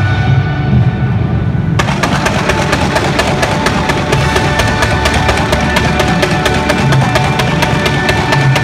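Show music playing, and from about two seconds in a dense, rapid crackling of fireworks that keeps going on top of it.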